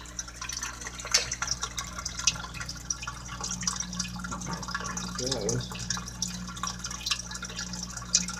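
Water trickling and dripping in a bullfrog aquarium, a constant patter of small drips over a steady low hum.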